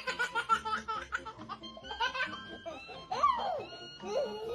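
Baby laughing in quick repeated bursts over background music. From about three seconds in come two longer sounds that slide down and back up in pitch.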